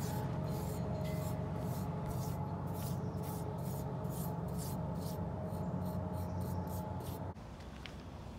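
Metal spoon scraping and smoothing wet concrete, about three short strokes a second, over a steady low hum; strokes and hum stop suddenly about seven seconds in.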